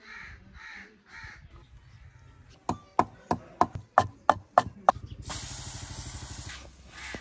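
A bird calls three times. Then a wooden pestle pounds green chilies in a clay mortar, about eight strikes at about three a second. Near the end comes a steady hiss of a flatbread steaming on a hot pan over a wood fire.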